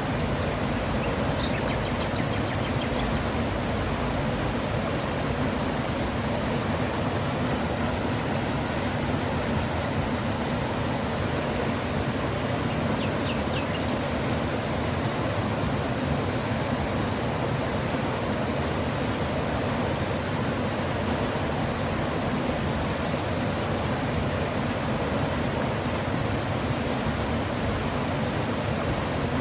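Mountain river flowing: a steady, full rush of water. Over it, faint high chirping from an insect repeats about twice a second, with a short pause about halfway through.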